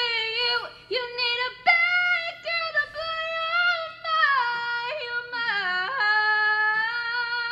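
A young woman singing solo in a high voice, moving through notes with quick jumps and glides, then holding one long steady note near the end.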